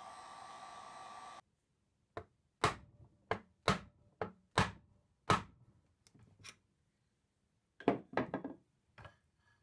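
Heat gun blowing steadily, then stopping abruptly about a second and a half in. Then a wooden mallet knocks on the wooden back rail of an antique chair, about seven sharp single strikes, to drive apart a joint whose hide glue has been softened by heat, with a quick cluster of knocks near the end.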